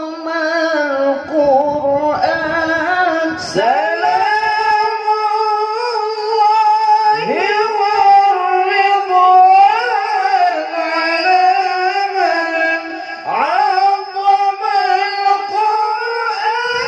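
Unaccompanied sholawat sung by men into microphones: long held notes with wavering ornaments, each new phrase sliding up in pitch, heard about every three to six seconds.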